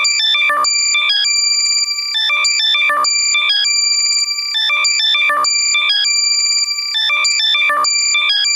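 Loud, heavily compressed electronic locator alert for finding lost AirPods: a looping pattern of rapid high chirping beeps and a held high tone, repeating about every two and a half seconds.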